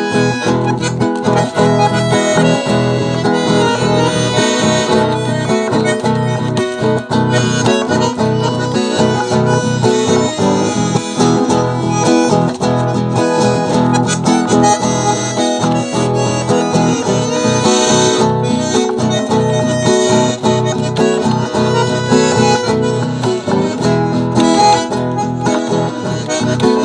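Acoustic guitar strumming a steady rhythm under a free-reed gaita playing the melody, in live instrumental music by a small group.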